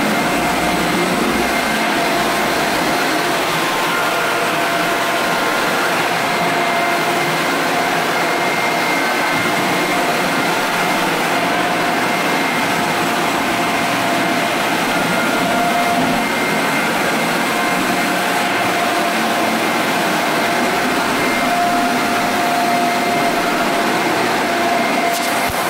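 Electric floor sander screening a hardwood floor, its motor running steadily with a faint whine that comes and goes.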